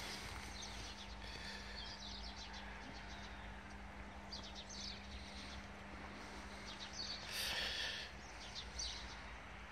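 Small birds chirping in short repeated bursts, over a faint steady hum and low rumble, with a brief louder rustle about three quarters of the way through.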